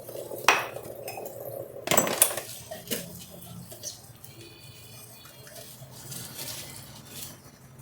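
Dishes and cutlery being handled, clinking and clattering, with a sharp clink about half a second in and the loudest cluster of clatters around two seconds in, then fainter knocks.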